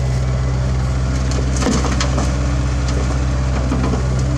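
CAT 305.5E2 mini excavator's diesel engine running steadily under load. A few sharp knocks and crunching sounds come about halfway through as the loaded bucket of soil is swung over the dump truck.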